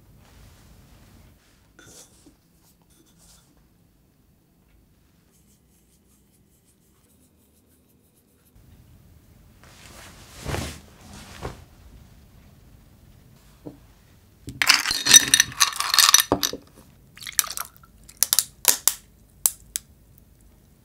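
Ice cubes crackling and clinking in a glass of iced coffee: a dense burst of crackling a little past the middle, then a string of separate sharp clicks. A soft rustle comes a few seconds before.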